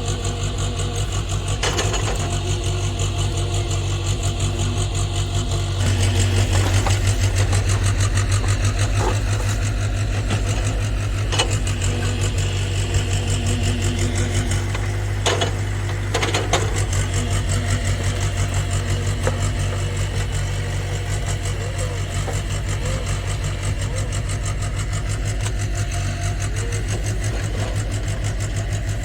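JCB JS81 excavator's diesel engine running steadily, working harder and louder for several seconds from about six seconds in, with a few sharp knocks scattered through.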